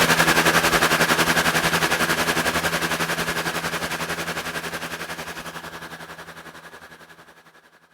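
Synthesised steam locomotive sound effect at full speed: rapid, even steam chuffs, about nine a second, over a steady hum. It fades away over the last few seconds.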